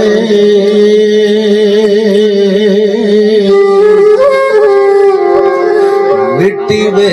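A man singing a Punjabi Sufi kalam through a microphone, drawing out one long, wavering note without words for several seconds, then sliding up in pitch near the end.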